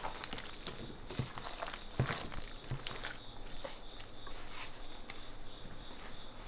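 Gloved hand mixing chicken pieces into thick wet batter in a stainless-steel bowl: irregular squelches and slaps, with occasional knocks against the bowl, the sharpest about two seconds in. A faint steady high whine runs underneath from about halfway.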